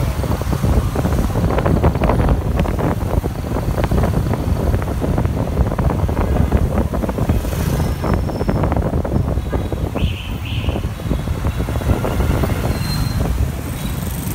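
Road noise from the back of a moving motor scooter in dense city traffic: the scooter's engine and passing motorbikes and cars under a heavy, buffeting rumble of wind on the microphone. Two short high-pitched tones sound about ten seconds in.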